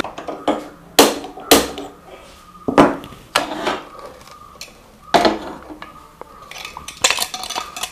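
Sharp clicks from a hand-held spark gas lighter being fired at a stove burner, about a second and a second and a half in, then the aluminium pressure cooker set down on the metal burner grate with a clank about five seconds in and another knock near the end.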